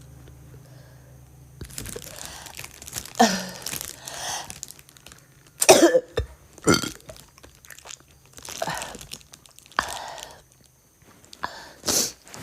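A woman coughing in a series of separate harsh bursts, with throat-clearing and gagging retches between them, as when coughing brings on vomiting.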